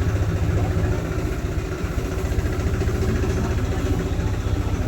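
An engine idling steadily, with a rapid, even low throb.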